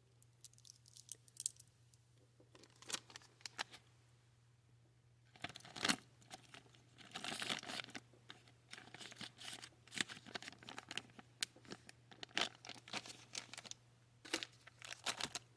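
Small plastic bead bag being handled and opened: quiet, irregular crinkling and crackling with brief tearing rustles and small clicks, busiest about halfway through.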